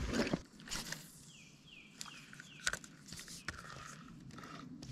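A bluegill dropped back into the water with a brief splash at the start, then a bird calling a quick run of four short falling notes. A few faint clicks from handling the fishing rod follow.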